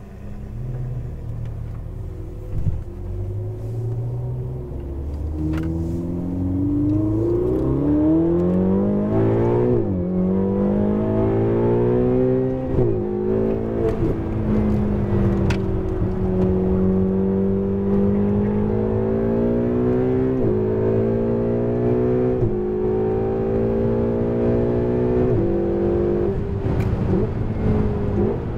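Ferrari 488 GTB's twin-turbo V8, heard from inside the cabin. It rumbles low as the car pulls away, then accelerates hard, its note rising through each gear and dropping suddenly at each upshift, about five times.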